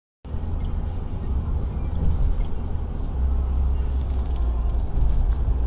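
Steady low rumble of road and engine noise heard from inside a moving vehicle's cabin, cutting in abruptly just after the start.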